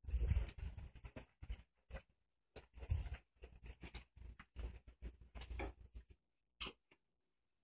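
Irregular rustles, knocks and clicks of a phone being handled and carried while walking, loudest in the first half second, with a separate short click near the end.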